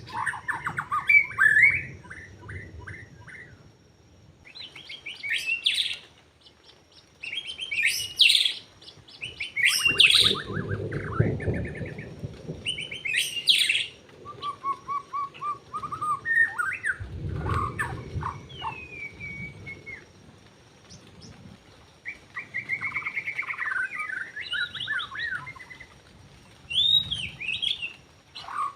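White-rumped shama (murai batu) singing: a string of loud, varied phrases of whistles, fast trills and chatters, in bursts with short pauses between. Twice a low rumbling noise comes in under the song.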